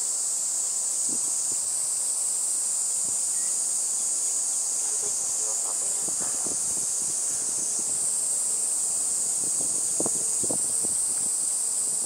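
A steady, high-pitched chorus of insects, unbroken and even in level.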